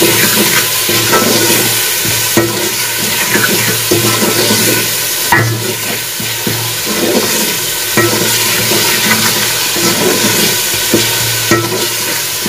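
Onion masala with salt and red chilli powder frying in oil in a metal pot, sizzling steadily while a wooden spoon stirs it, scraping and knocking against the pot every few seconds. The masala is being fried down before the tomatoes go in.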